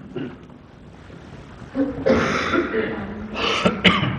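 Coughing and throat clearing, once about two seconds in and again near the end, over faint voices.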